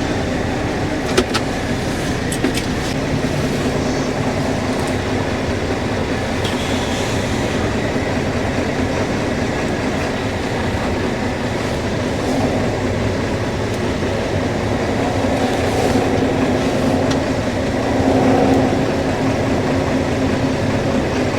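A motor running steadily with a low drone, with a few sharp clicks and knocks over it.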